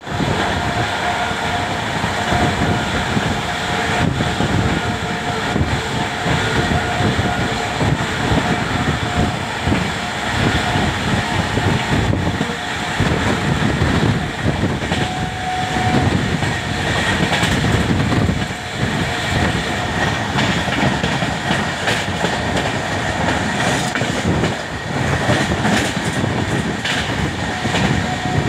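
Running noise of a passenger train coach at speed, heard through its open window: a steady rumble of wheels on the rails with a rhythmic clickety-clack, and at times a faint steady whine.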